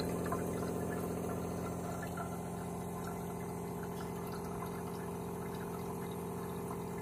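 AquaTru Carafe reverse osmosis purifier's pump running with a steady hum as it pushes tap water through the filters during a filtration cycle.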